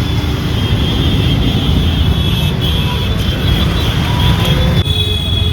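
Steady low rumble of a vehicle engine running, with no distinct knocks or clicks.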